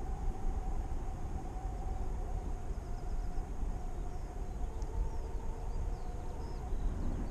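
Wind rushing over the microphone of a paraglider pilot in flight, a steady low rumble, with a faint steady mid-pitched tone running under it.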